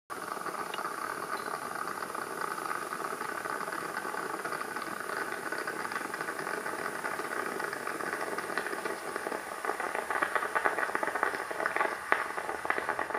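Stovetop moka pot hissing and sputtering on the burner as the coffee comes up. The crackling grows louder and denser near the end.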